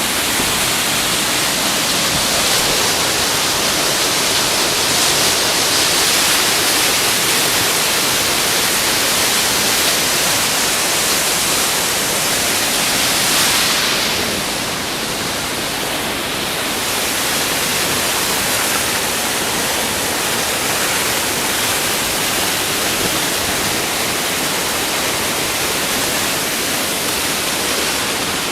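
Steady rush of a mountain waterfall running heavy with rain water, a loud even hiss of falling water, a little quieter from about halfway through.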